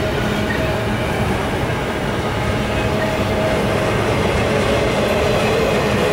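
An intermodal freight train's double-stack well cars and trailer flatcars rolling past: a steady rumble of steel wheels on rail, with faint steady whining tones over it.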